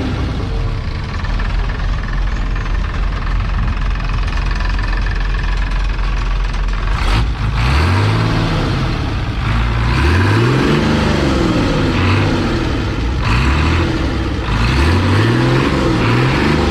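Boat engine running hard under a rush of wind and water noise. From about halfway through it revs up and down over and over, every couple of seconds.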